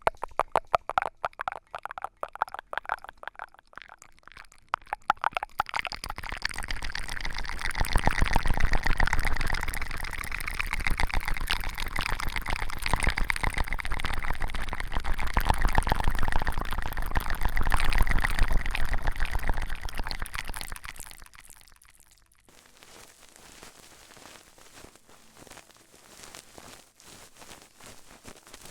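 ASMR trigger sounds: rapid tapping for about five seconds, then about fifteen seconds of dense crackling, then faint light taps near the end.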